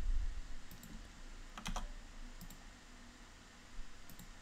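Several sparse, light computer clicks, some in quick pairs, from working the software's controls, over a faint low hum.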